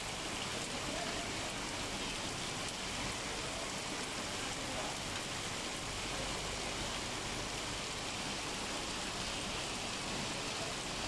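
Steady monsoon rain falling on concrete rooftops, an even hiss that does not change.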